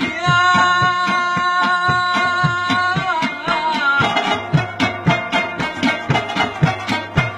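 Pashto folk music on rabab and mangay pot drum with a singer: a voice holds one long note for about three seconds, then bends into a quicker phrase, while the rabab plucks and the pot drum keeps a steady beat of low strokes.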